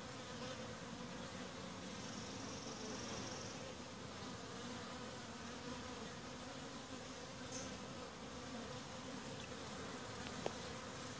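Honey bees buzzing in a steady hum as they crowd and fly around the hive entrance, with one brief click near the end.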